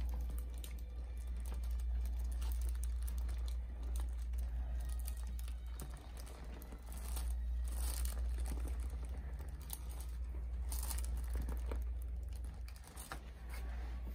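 Rustling and crinkling with small clicks as hands work the patient's shoulder on a treatment table, with a few louder rustles about halfway and near the end. A steady low hum runs underneath.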